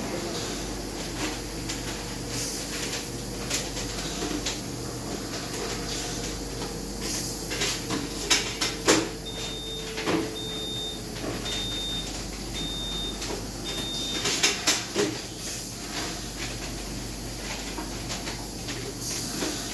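Steelco VS6/2 steam sterilizer running mid-cycle: a steady mechanical hum and hiss with scattered clicks and knocks. About halfway through, five short high beeps sound about a second apart.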